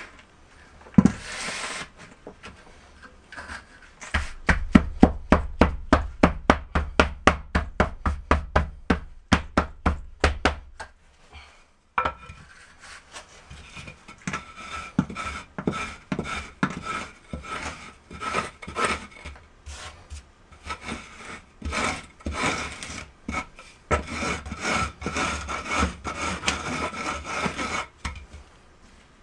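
A wooden straightedge and a trowel scraping back and forth across sand-and-cement deck mud while screeding a sloped shower floor around the drain. There is a fast, regular run of strokes, about three a second, for several seconds, then slower, uneven scraping.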